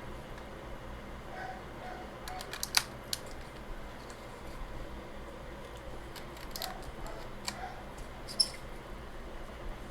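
Plastic keycaps being pressed onto a computer keyboard's key switches: sharp plastic clicks, a quick cluster about two to three seconds in and a few single clicks later, the loudest near the end.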